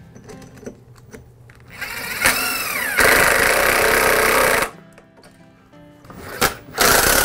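Cordless drill spinning up with a whine that bends in pitch, then running under load into the wooden benchtop through a vise's mounting flange for about two seconds before stopping. After a click, a second run under load starts near the end.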